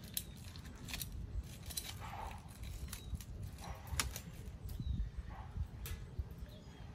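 A few scattered light clicks and taps of a small Weber kettle thermometer fitting being handled, over a low steady background rumble.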